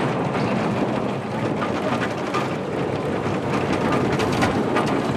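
Bobsled coaster car running fast through its half-pipe trough: a steady rushing rumble from its wheels on the track, with scattered clicks and knocks.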